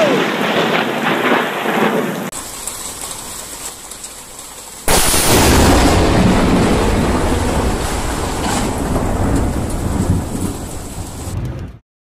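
Thunderstorm: rain with thunder rumbling just after a close lightning strike. A few seconds in comes a sudden, loud, deep burst of storm noise that lasts several seconds, slowly fading, then cuts off abruptly.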